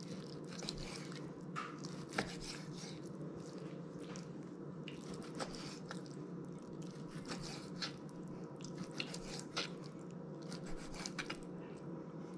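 Kitchen knife cutting raw lingcod fillet into chunks on a bamboo cutting board: soft, irregular taps and clicks as the blade goes through the flesh and meets the board, over a faint steady hum.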